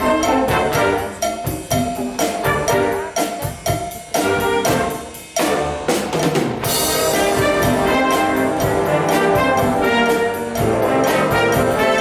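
Wind band playing a Cuban-style piece: brass-led ensemble with percussion in short, punchy rhythmic chords. About five and a half seconds in the music dips briefly, then the full band comes back in with a bright crash and longer held chords.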